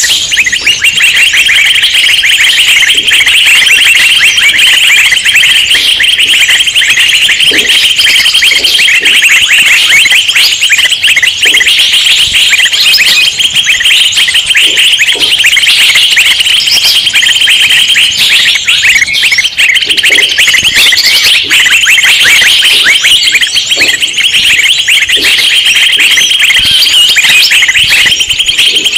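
A noisy chorus of many small birds chirping and chattering at once, densely and without a break. It is the frenzied flock sound used as a lure ('pikat') to draw in wild birds.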